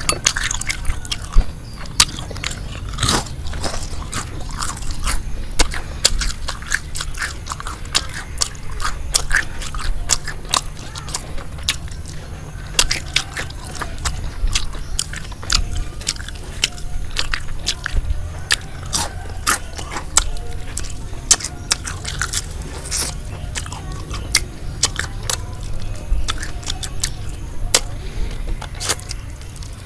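Close-up eating sounds: irregular crisp crackles and crunches from biting and chewing battered, deep-fried frog, over a low steady rumble.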